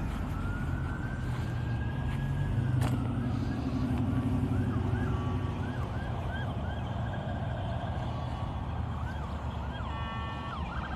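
Emergency vehicle siren: one long rising wail, then a run of quicker rising-and-falling sweeps, over a steady low rumble of traffic. A single sharp click about three seconds in.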